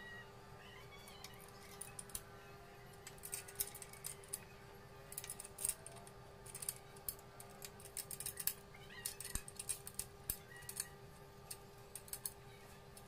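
Irregular small metallic clicks and taps of bolts and fittings being handled and set into an aluminium motorcycle top-box base plate, coming in short clusters over a steady background hum.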